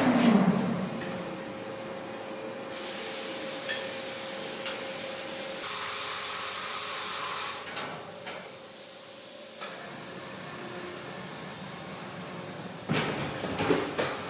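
Workshop background noise: a steady hiss with a faint steady hum, two sharp clicks a second apart a few seconds in, and a run of metallic knocks near the end.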